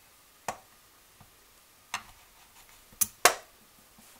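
Four sharp clicks or knocks spread over about three seconds, the last two close together and the last one the loudest.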